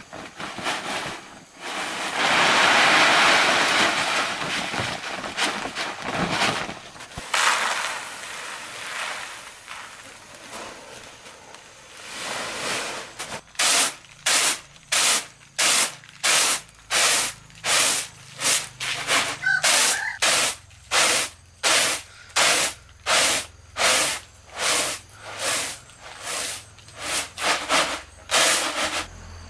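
A few seconds of rushing hiss, then steady rhythmic rasping strokes, about three every two seconds, like repeated scraping or sawing.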